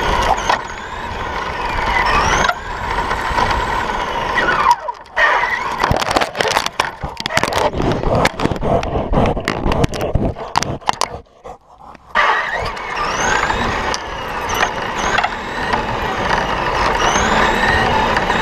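RC car driving fast on asphalt, its motor whining and rising and falling in pitch with the throttle. In the middle the whine gives way to a run of irregular knocks, scrapes and thumps as the dog catches the car in its mouth. The whining drive resumes near the end.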